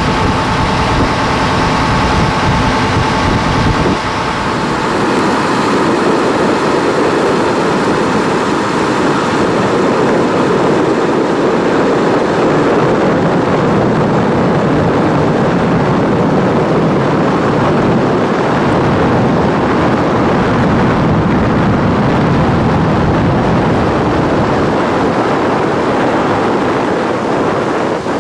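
Boat under way at speed: its engine runs steadily under a loud rush of wind and water, with a high steady whine that fades about four seconds in.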